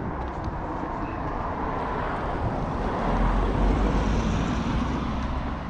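Road traffic going by, a steady rush of tyre and engine noise that swells about three seconds in as a vehicle passes, then eases off.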